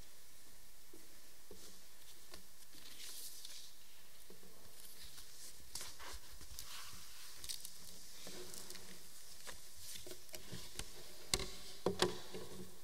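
Faint rustles and light clicks of handling at a lectern over a steady low hiss, then three sharp knocks close together near the end.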